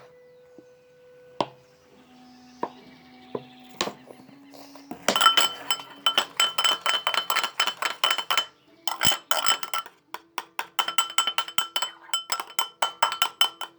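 A small spoon clinking rapidly against a container, about five ringing strikes a second, as soapy liquid is beaten into foam. It starts about five seconds in, with a short pause around nine seconds.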